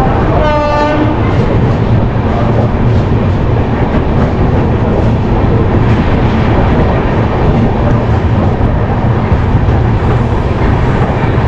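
Passenger train running on the track: a loud, steady rumble of wheels and coach. A short pitched blast, under a second long, sounds about half a second in.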